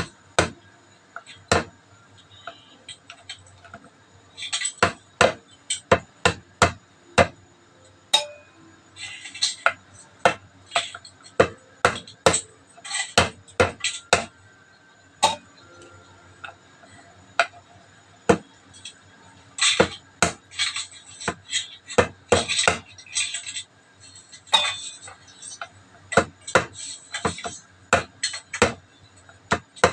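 Meat tenderizer mallet knocking on crab claws against a wooden cutting board to crack the shells: many sharp taps coming irregularly, some in quick runs.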